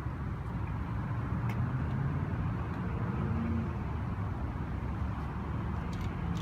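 Steady low rumble of motor vehicle engine noise, with a faint tone that rises and falls about halfway through.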